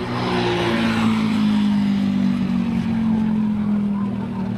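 A vehicle's engine running steadily at road speed, a low even hum, with wind and road noise over it that is strongest in the first second or two.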